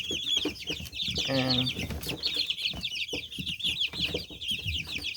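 A group of young chicks peeping continuously: a dense chorus of rapid, high, overlapping chirps.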